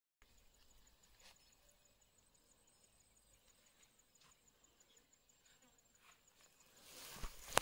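Faint outdoor ambience with a steady, evenly pulsing high-pitched insect trill. Near the end come louder rustling and a sharp click.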